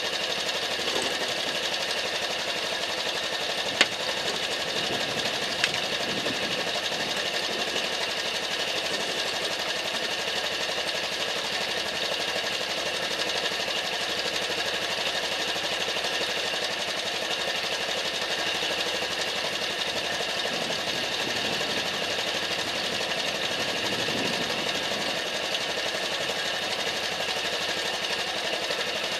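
Honda Super Cub's air-cooled single-cylinder four-stroke engine idling steadily with a fast mechanical clatter. Two sharp clicks come about 4 and 6 seconds in.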